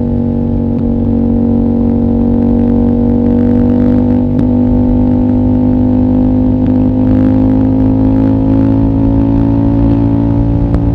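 CFMOTO 800NK parallel-twin engine running through a decatted exhaust with the stock muffler, held at steady revs with the pitch creeping slowly upward.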